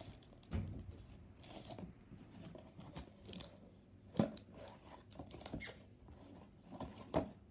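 Cardboard card box and plastic-wrapped items being handled and packed: scattered taps, knocks and light crunching, with a sharp knock about four seconds in and another near the end.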